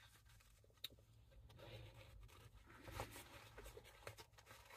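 Faint cutting with a small pair of scissors: a light click just under a second in, then soft scratchy rustling with a few small snips.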